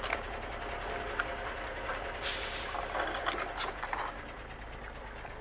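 Motorized toy train running, with a steady mechanical rattle and scattered clicks, and a short burst of hiss a little over two seconds in.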